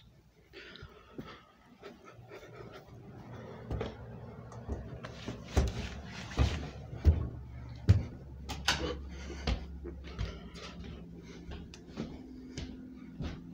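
Handling noise as a DVD is lifted and turned over in the hand: a run of clicks and knocks, the loudest a few sharp bumps in the middle, over a low steady hum.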